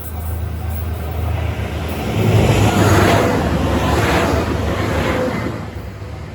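A JR Shikoku diesel train passing over a level crossing: its rumble and wheel noise build to a peak about two to five seconds in, then fade away. The crossing bell's repeated ding can be heard faintly at the very start.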